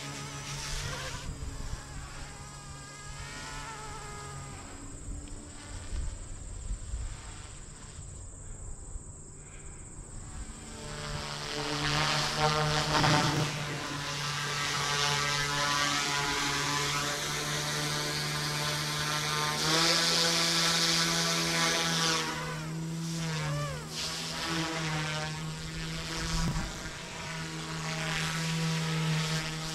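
Eachine 180 direct-drive RC helicopter's electric motors and rotors whining and buzzing in flight. The whine fades for a few seconds early on, then comes back louder, its pitch rising and falling with the throttle.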